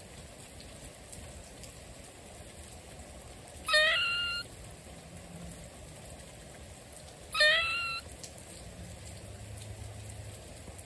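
Steady rain falling, with a short high call that rises and then holds, heard twice about four seconds apart.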